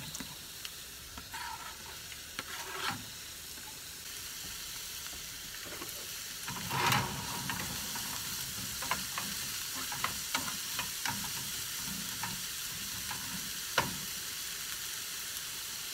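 Chopped red onion and red pepper sizzling in a small frying pan, with a spatula stirring and tapping against the pan. A few knife chops on a cutting board come in the first seconds, and about seven seconds in the frying swells louder as the chopped pepper goes into the hot pan.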